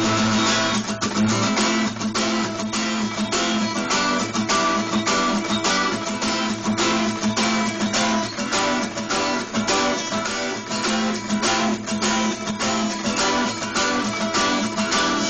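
Acoustic guitar strummed in a steady, even rhythm, ringing chords with no singing; recorded on a phone.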